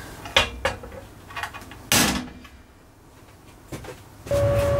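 Club hammer knocking on a welded sheet-steel battery box: a few lighter knocks, then one loud ringing strike about two seconds in. A steady hum starts just before the end.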